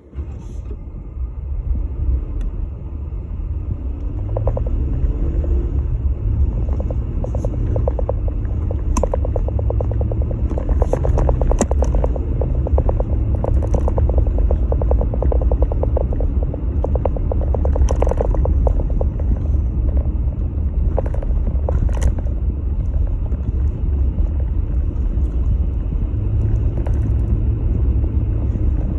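Jeep Gladiator pickup moving through deep snow: a steady low rumble with scattered crackling crunches.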